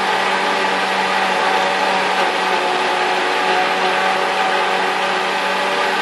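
Kenwood countertop blender motor running steadily at speed, grinding a frozen blueberry shake with milk.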